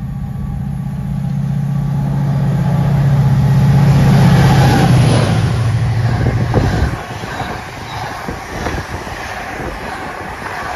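Locomotive hauling an intermodal container freight train passing at speed. Its low engine drone builds to its loudest about four seconds in and cuts off sharply at about seven seconds as the locomotive goes by. The container wagons then rattle and clatter past on the track.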